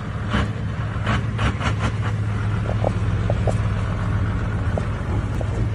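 A 4x4 van's engine idling with a steady low drone from the exhaust. Several short bursts of noise come in the first two seconds.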